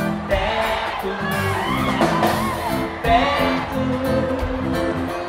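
Pop band music with a singer's voice over a moving bass line.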